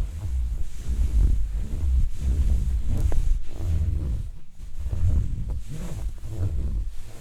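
Textured material rubbed and scratched right against the microphone, giving a deep, uneven rumble that swells and fades about once a second, with a lighter scrape about three seconds in.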